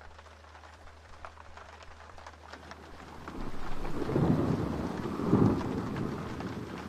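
Faint hiss, crackle and low hum of an old film soundtrack. About three seconds in, a loud rushing rumble swells up, peaks twice, then slowly dies away.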